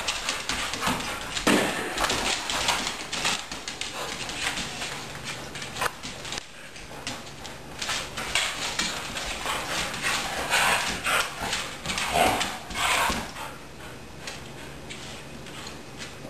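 Two huskies play-wrestling: scuffling and knocking of paws and bodies, with bursts of play-growling. The growling is loudest about a second and a half in and again from about ten to thirteen seconds in, then it calms near the end.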